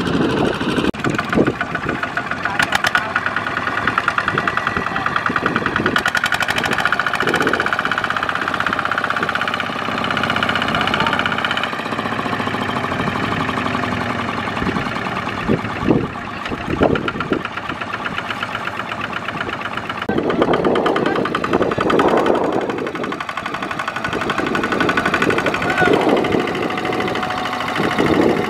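Single-cylinder diesel engine of a two-wheel walking tractor running steadily with a rapid knocking beat, working under load as the tractor struggles, stuck in sticky mud with a trailer of rice sacks.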